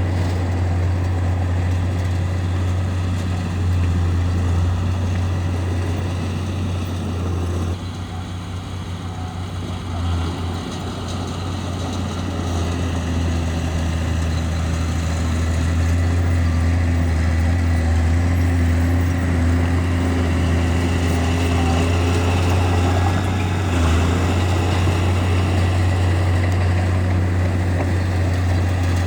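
Bulldozer's diesel engine running steadily with a deep drone. It eases off about eight seconds in and picks back up a couple of seconds later.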